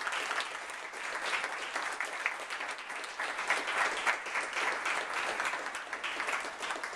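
A group of people applauding, with steady, dense hand clapping.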